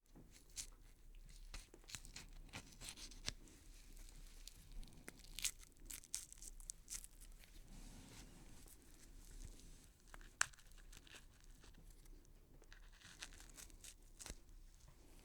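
Horror sound effect of scattered, irregular clicks and crackles, like something being torn or crunched, over a faint low hum, with one sharper snap about ten seconds in. It starts suddenly after silence.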